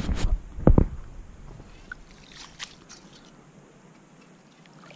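Camera being handled, with two heavy knocks and rubbing on the microphone in the first second. Faint scattered clicks follow.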